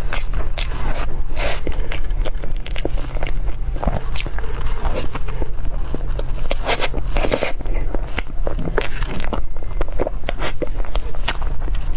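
Close-miked eating sounds: wet mouth clicks and smacks while chewing a soft cream roll cake, mixed with a metal knife scraping cream off a crinkly paper wrapper. A steady low hum runs underneath.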